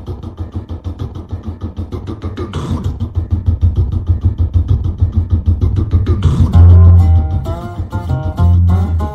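Instrumental dance-song music: a fast, even ticking beat over a low pulse, with a heavier bass and a melody of held notes coming in about six and a half seconds in.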